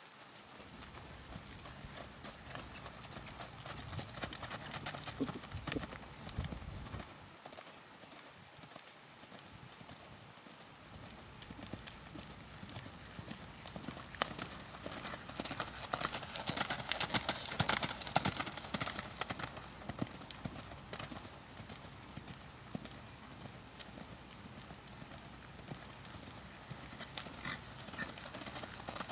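A horse's hoofbeats on sand arena footing as it is ridden at a trot and lope. The hoofbeats grow louder toward the middle, then ease off.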